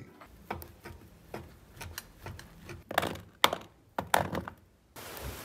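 Kitchen handling sounds: a run of light knocks and clicks from plastic food containers and bottles being set down and handled while a lunch box is packed, the sharpest three or four coming about three to four seconds in. Near the end it cuts to a steady outdoor hiss.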